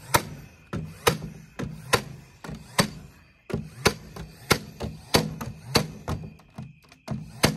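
Cordless 18-gauge brad nailer driving brad nails into wooden boards: about a dozen sharp shots in a steady run, roughly one every two-thirds of a second.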